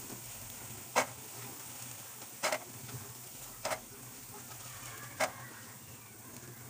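Hot oil sizzling steadily in a kadai as fried rice balls are scooped out with a slotted skimmer, which knocks sharply against the pan four times.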